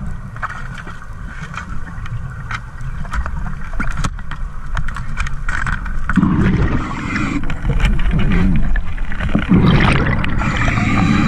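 Underwater sound: a steady low rumble with scattered sharp clicks, then from about six seconds in two long gurgling rushes of bubbles, a diver breathing out through a scuba regulator.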